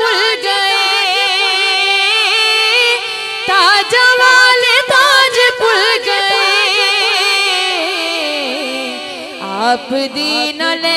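A woman singing a naat in a long wordless, melismatic passage, her voice wavering through ornaments; the line sinks lower about eight seconds in before climbing again.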